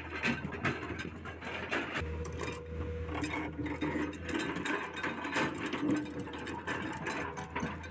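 Heavy earth-moving machinery running with a steady low engine hum, under a constant clatter and knocking of stones and metal as rubble is moved to fill a breach.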